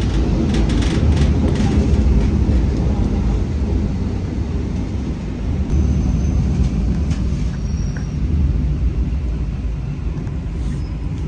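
Electric multiple unit heard from inside a passenger car while running: a steady low rumble of wheels on rail, with a few quick clatters in the first two seconds.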